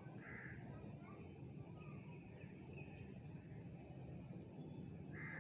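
Faint background of small birds chirping, short high chirps about once a second, over a low steady hum.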